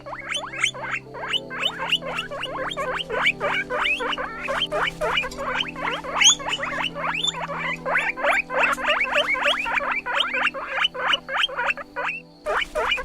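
Guinea pig squeaking rapidly, a fast run of short, rising squeaks at about seven a second, with a brief break near the end.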